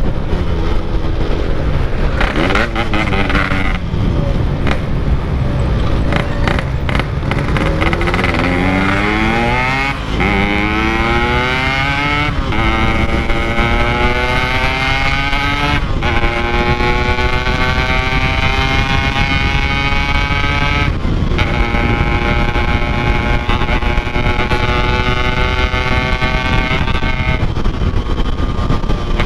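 Yamaha RX-King two-stroke motorcycle with a Packing Power exhaust under way: the engine revs climb, then it is shifted up through the gears with brief breaks in the exhaust note, over wind rushing across the microphone.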